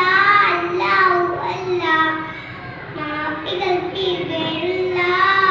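A young boy singing solo and unaccompanied, in long held notes that bend up and down in pitch.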